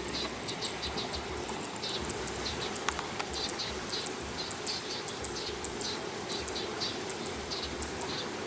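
Insects chirping in quick, irregular short bursts over a steady low rumble, with two sharp clicks about three seconds in.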